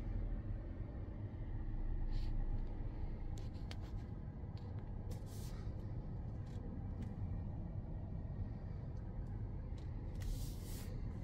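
Steady low road and tyre rumble inside the cabin of a Peugeot e-Partner electric van on the move, with a few short clicks and brief rustles.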